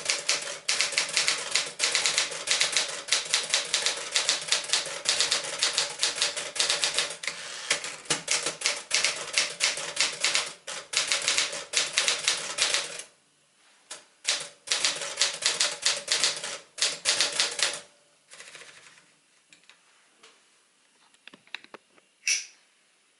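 1964 Smith-Corona Sterling 5AX manual portable typewriter being typed on at a rapid, even pace, its typebars clacking against the platen. The typing breaks off about 13 s in and picks up again for a few more seconds. After that come only faint scattered clicks and one sharper click near the end.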